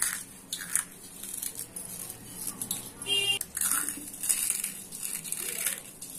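Cornflakes being crushed by hand over a bowl of flour: a run of dry, irregular crunching crackles. About three seconds in, a brief high tone sounds.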